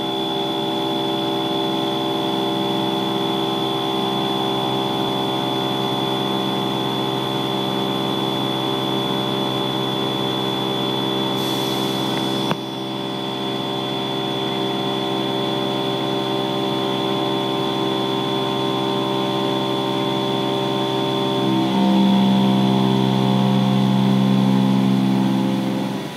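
Haas VF-6 50-taper CNC milling machine cutting 4140 pre-hard steel under flood coolant: a steady hum of several tones from the spindle and cutter over the hiss of the coolant spray. About halfway there is a brief hiss and a short dip, and for the last few seconds the cut gets louder before it drops off near the end.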